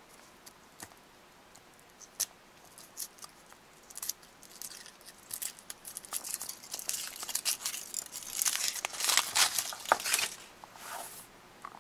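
Foil wrapper being peeled by hand off a Kinder Surprise chocolate egg, crinkling and tearing in quick crackly bursts. After a few quiet seconds with odd clicks, the crinkling picks up and is busiest shortly before the end.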